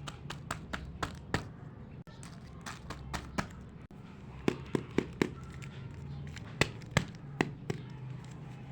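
Small plastic toy pieces clicking and tapping as they are handled: a string of sharp, irregular clicks, the loudest in two clusters in the middle and later on, over a steady low hum.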